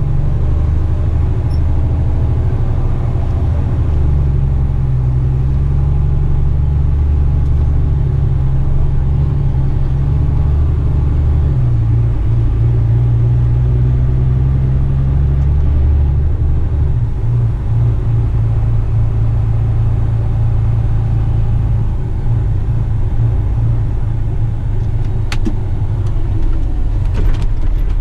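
Heavy rigid truck's diesel engine droning steadily as it drives slowly. The engine note shifts about twelve seconds in and again about five seconds later.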